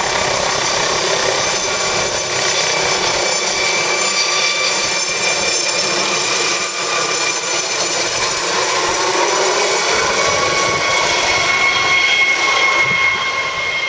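Yorkshire Air Ambulance MD 902 Explorer twin-turbine helicopter climbing away overhead at take-off power: a loud, steady rotor rush with a high turbine whine on top, beginning to fade near the end as it flies off.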